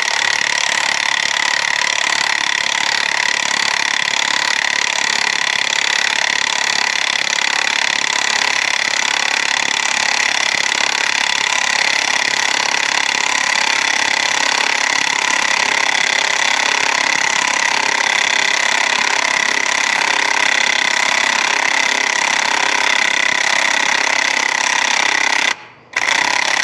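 Impact wrench hammering continuously as it drives a starter mounting bolt with damaged threads into the engine. It stops briefly near the end, then starts again.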